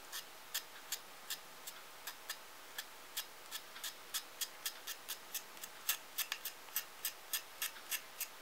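Knife blade held upright, scraping the graphite core of a triangular pencil to a point: a steady run of short, light scrapes, about three a second.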